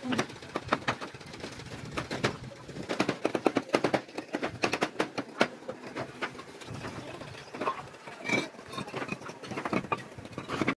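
Fired-clay bricks clinking and knocking against one another as they are set flat in rows on a steel-girder roof. The knocks come as a quick, uneven run of sharp clicks, thickest in the middle.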